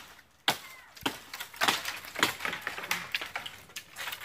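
Sharp, irregular knocks and cracks of wood up in a tree, roughly two a second, the first the loudest.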